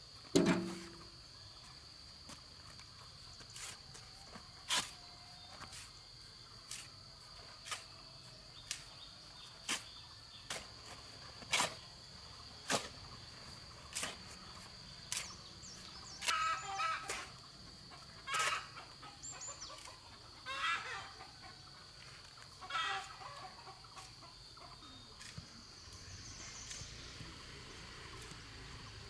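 A chicken clucking several times over a steady high insect drone, with sharp single knocks about once a second, the loudest right at the start.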